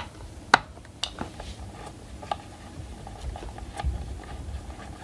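Scattered light clicks and taps of a screwdriver and small screws being worked out of a graphics card's cooler, with one sharper click about half a second in.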